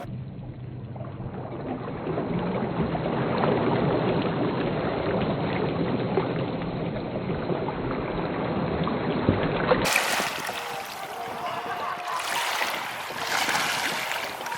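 Steady rushing wind-and-water noise with a low motor hum under it; about ten seconds in the sound changes abruptly to a brighter, airier rush.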